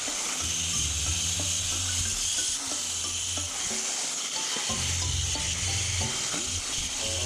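Disc grinder with a cup brush scrubbing the corroded aluminium crankcase of a scooter engine: a steady hiss of bristles on metal, with background music underneath.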